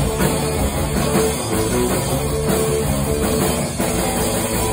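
Punk rock band playing live: electric bass, electric guitar and drum kit driving a fast, loud, steady beat.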